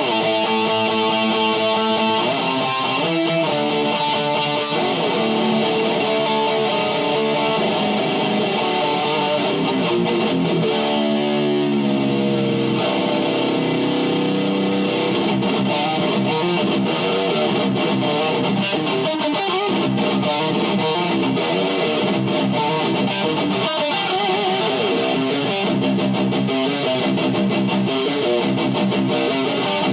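Electric guitar, a black Les Paul-style single-cutaway, playing a run of extreme metal riffs: picked notes and chords changing every second or so, with a slide in pitch about eleven seconds in.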